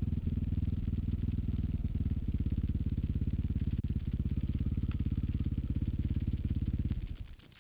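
Dirt bike engine running at a low, steady speed with a fast pulsing exhaust beat, then shut off about seven seconds in and dying away.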